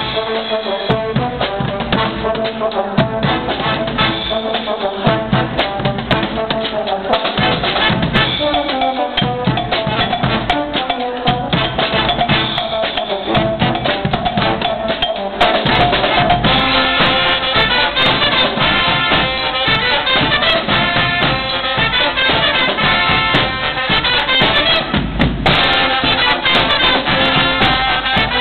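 Guggenmusik brass band playing: trumpets, trombones and sousaphones over a drum set of bass drum, toms and cymbals. The playing gets louder about halfway through.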